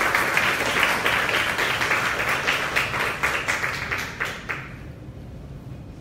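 Congregation applauding, a dense patter of many hands clapping that dies away about four and a half seconds in.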